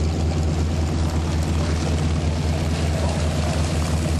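Propeller aircraft engine running with a steady low drone that holds its pitch.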